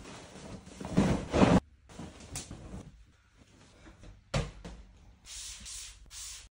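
Bedding rustling and whooshing in short bursts as a duvet and a throw are shaken out and flung over a bed, loudest about a second in, with a short knock a little after four seconds.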